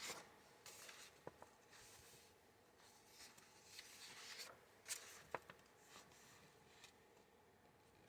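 Faint rustling of paper pages being handled and turned, with a few light clicks and taps.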